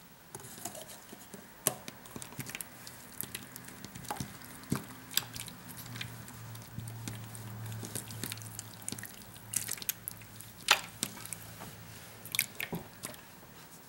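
Fingers squishing and poking a very soft, jiggly goo-like slime that turns to mush, giving scattered, irregular small wet clicks and squelches.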